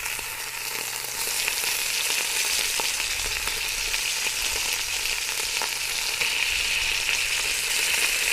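Bacon strips sizzling in hot olive oil in a cast-iron Dutch oven, a steady hiss with fine crackles and pops that grows louder about a second in.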